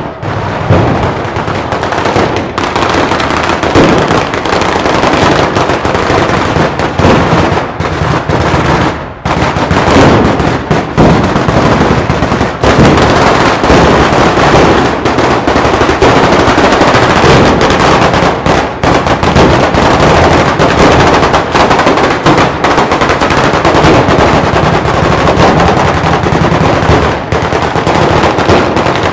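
A batteria, a long chain of ground firecrackers, going off in a continuous rapid string of loud bangs, with a brief lull about nine seconds in.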